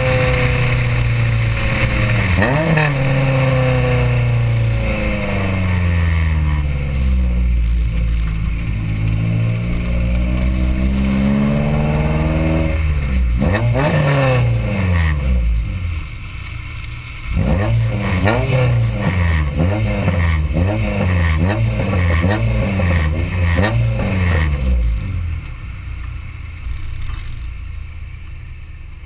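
Honda B16A 1.6-litre DOHC VTEC four-cylinder engine heard through a custom side-exit exhaust (4-1 header, test pipe, resonator, SLP Loudmouth muffler) while driving. The revs drop slowly over the first dozen seconds, then rise and fall in a run of short pulls, and settle lower and quieter near the end.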